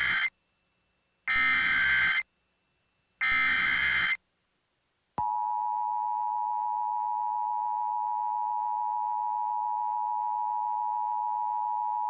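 Emergency Alert System SAME header, short buzzy digital data bursts about a second long: the end of one, then two more. About five seconds in the steady two-tone EAS attention signal starts and holds.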